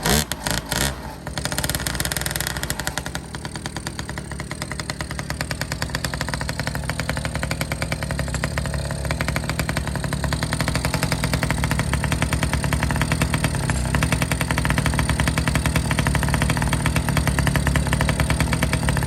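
A pocket bike's small two-stroke engine sputters in a few loud bursts as it fires up, then runs steadily with a fast, even buzz that grows slightly louder.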